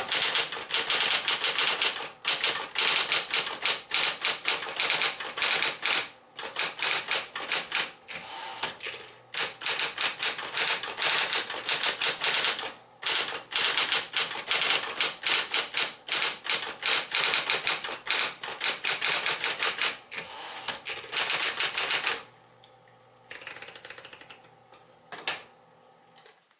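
Smith-Corona Electra 120 electric typewriter typing in quick runs of keystrokes with short pauses between them, over the steady hum of its motor. The typing stops a few seconds before the end, leaving the hum and a few soft clicks.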